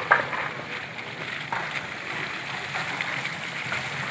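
Small ground-level fountain jets spouting up through paving stones, water splashing steadily onto the stone, with a sharp knock near the start.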